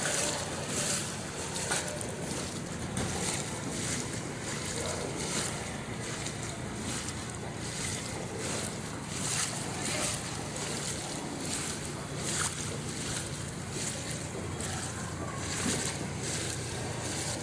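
Floodwater sloshing and splashing as someone wades through it, a swoosh of water with each step, roughly once a second.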